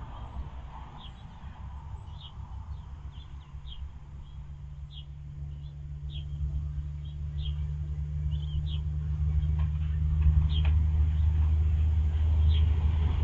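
Low vehicle engine rumble that grows steadily louder over the second half, with small birds chirping in short high notes throughout.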